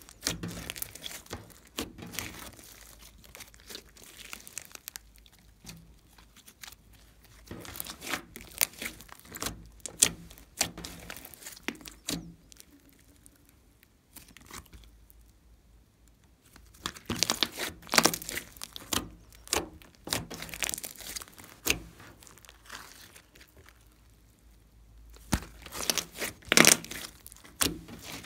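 Glossy slime being kneaded, pressed and stretched by hand, giving irregular sticky crackles and pops. The crackling thins out and goes quiet for a few seconds about halfway through, then returns thicker.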